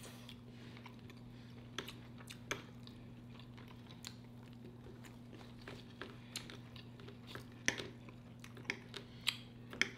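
Close-miked chewing and eating sounds: scattered short wet smacks and clicks as forkfuls of food are chewed, coming more often in the second half. A faint steady low hum lies underneath.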